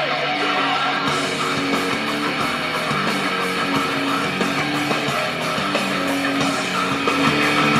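Intro music: a guitar-led track with strummed chords and a steady beat.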